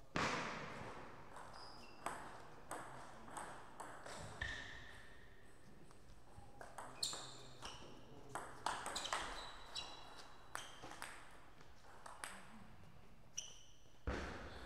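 Table tennis rally: the ball clicking sharply off the bats and the table in quick, irregular hits, with brief high squeaks of shoes on the court floor. A loud knock opens it, and another comes near the end.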